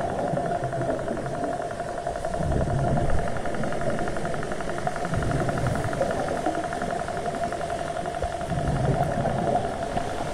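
An engine droning steadily, heard underwater: a constant hum with a fast, even pulsing over a low rumble.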